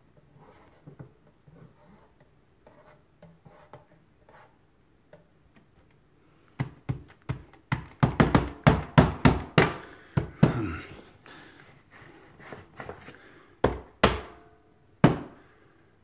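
Hard plastic clicks and knocks from an Electrolux Silent Performer canister vacuum's power button and suction dial being pressed and worked by hand. There are faint clicks at first, then a fast run of loud clicks about halfway through and a few single loud ones near the end. The vacuum's motor does not run.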